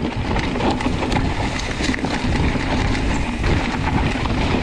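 Mountain bike rolling fast down a rough dirt trail: a continuous rumble of tyres and wind buffeting the GoPro's microphone, with many short clicks and rattles from the bike.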